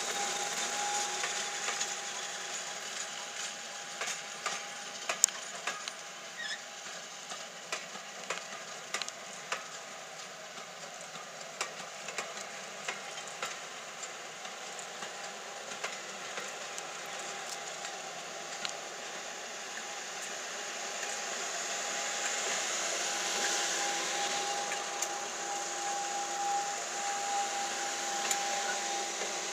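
Class 50 diesel locomotive running slowly light engine, its English Electric V16 diesel engine and cooling fans giving a steady hiss and whine that grows louder in the last few seconds as it draws level. Scattered sharp clicks throughout.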